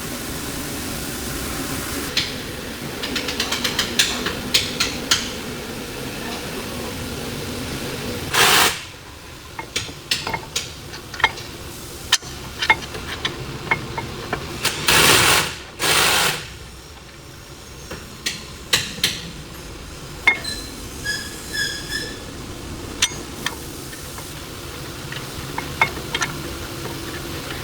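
Metal hand tools and brake parts clinking and knocking, with two short hissing bursts, one about eight seconds in and one about fifteen seconds in, over a steady background hum that fades after the first eight seconds.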